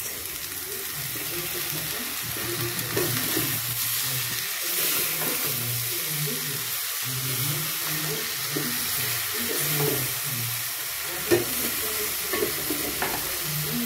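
Oil sizzling steadily in a small pot as dried big omena (fulu) fry with onions and tomatoes, with a spoon stirring and scraping through the mixture to mix in the tomato. One sharp knock comes late on.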